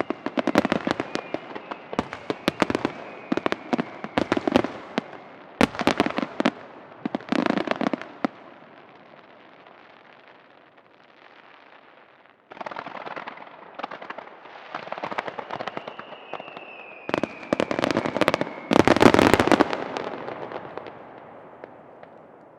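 Aerial firework shells bursting in rapid volleys with crackling, easing off to a lull about halfway, then starting again suddenly and building to the loudest cluster of bursts near the end. A thin falling whistle is heard twice.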